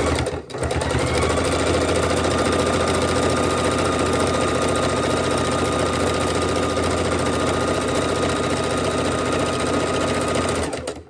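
Electric sewing machine stitching along a fabric edge. It starts, pauses for a moment, then runs at a steady speed with a motor whine that rises as it gets up to speed, and stops shortly before the end.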